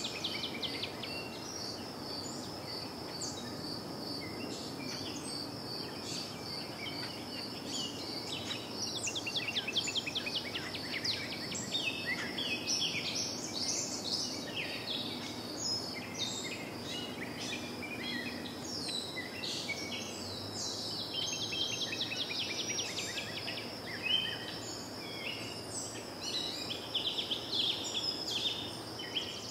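Outdoor ambience of small songbirds chirping and twittering, busiest about a third of the way in and again near the end, over a steady high insect trill and a low background hum.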